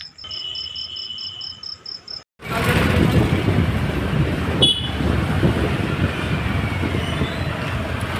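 Crickets chirping in an even pulsing trill, about four chirps a second, until an abrupt cut about two seconds in. Then comes the loud, steady rumble of a moving vehicle: engine and road noise heard from a vehicle on the move.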